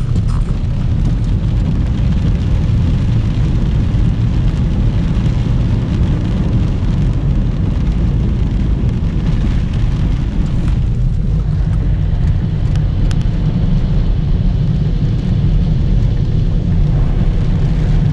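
Car driving through a flooded street in heavy rain, heard from inside the cabin: a steady low rumble of engine and tyres, with the hiss of water thrown up from the wheels and rain on the car.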